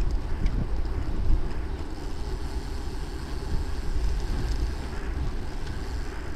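Wind rushing and rumbling over the microphone of a camera mounted on a moving road bicycle, a steady low rumble.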